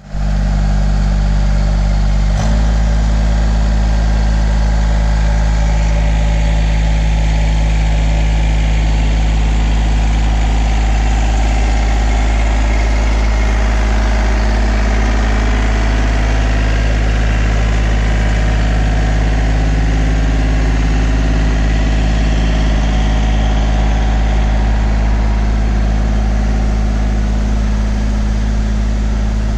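John Deere 3036 tractor's diesel engine running steadily at a constant speed while it drives its mounted solar-panel washing sprayer. Its note shifts abruptly about two seconds in, then holds steady.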